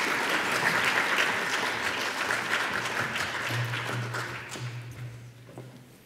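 Audience applauding, the clapping dying away over the last two seconds, with a low steady hum about halfway in.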